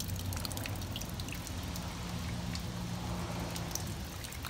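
Rainwater being poured from a bucket into a rain barrel: steady splashing and running water with many small drips and splats.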